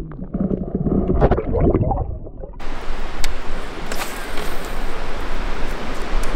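Muffled underwater gurgling and sloshing as a bass is released, heard through a submerged camera. About two and a half seconds in it cuts to a steady hiss of wind and water above the surface, with a few sharp clicks.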